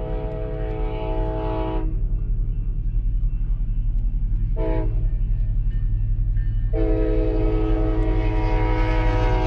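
Union Pacific freight locomotive's multi-chime air horn sounding the crossing signal: a long blast ends about two seconds in, a short blast comes near the middle, and another long blast starts about two-thirds through and holds. Under it a steady low rumble slowly grows louder as the train approaches.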